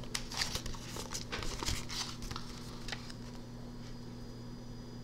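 Paper rustling and crinkling as a loose sheet and a book's pages are handled, in scattered bursts over the first few seconds. After that only a faint steady electrical hum remains.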